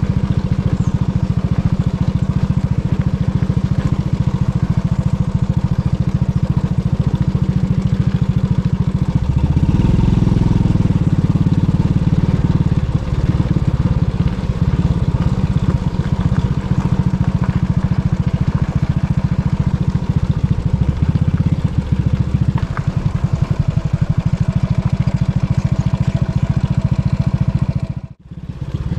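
Small single-cylinder four-stroke engine of a 2001 Honda Biz 100 running steadily under way while riding, with a low rumble that swells about ten seconds in. The sound drops out briefly near the end.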